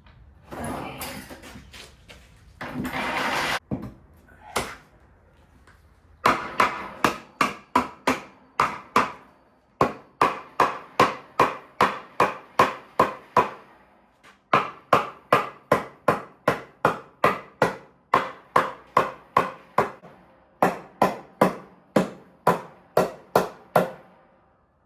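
A hammer striking timber in long runs of steady blows, about three a second, with short pauses between the runs. Before the hammering there are a couple of short scraping sounds.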